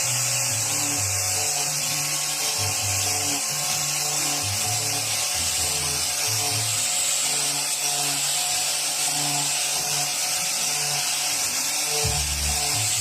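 Background music with a bass line that changes note about twice a second, over a steady loud high hiss.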